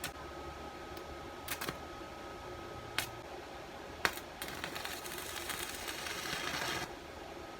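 Stick arc welding with a Makita inverter welder: a few sharp clicks as the electrode is struck, then about two and a half seconds of crackling arc that stops abruptly.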